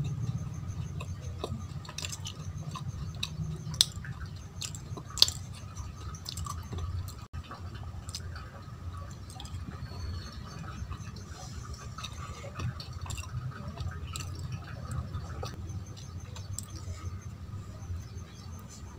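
Close-up chewing of syrupy Indian sweets: soft, wet mouth sounds with scattered small clicks, the two sharpest coming about four and five seconds in. A low steady hum runs underneath.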